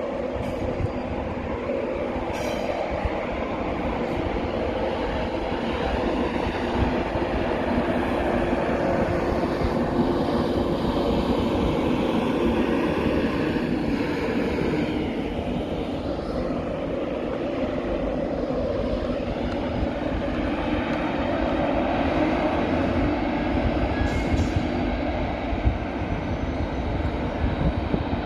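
LNER passenger train running along the main line through the station: a steady rumble of wheels on rail with a droning hum, and a falling whine about halfway through as it moves away.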